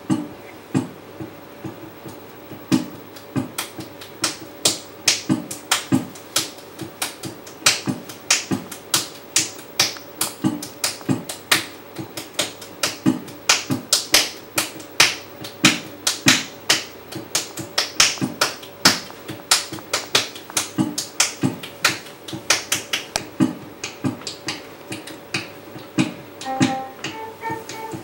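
Sharp percussive clicks made by a performer right at a microphone, two or three a second in an uneven rhythm, as part of an experimental live piece. Near the end, steady electronic keyboard notes come in.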